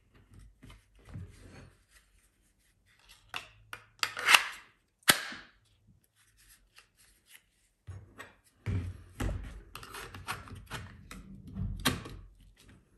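Knives being pushed into a molded Kydex sheath, with sharp clicks as they snap into the sheath's retention, loudest about four seconds in and again near the end. Hard plastic scrapes and rubs between the clicks.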